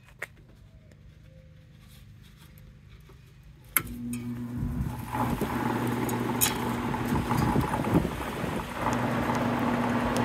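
Vintage McGraw-Edison room air conditioner's fan motor switched on with a sharp click a few seconds in, then spinning up and running steadily with a hum and a rush of air from the blower. The owner calls the fan motor bearings a little crusty.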